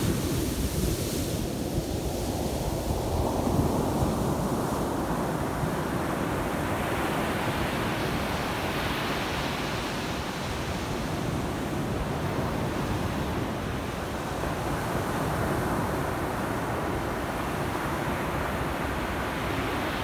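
Surf breaking and washing up a sandy beach in rough, storm-driven waves: a steady rush of foaming water, with wind on the microphone adding a low rumble.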